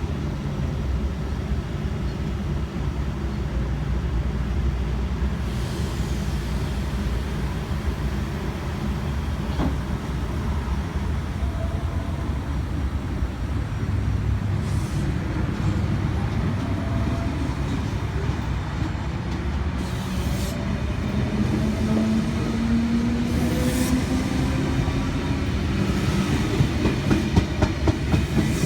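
An 8-car V set double-deck electric intercity train pulling into the platform, with a steady low rumble and wheel clatter. A whine rises in pitch over the last several seconds.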